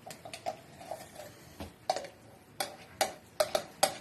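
Spoon clinking against a dish as cat food is served out: a run of irregular taps that come quicker and louder in the second half.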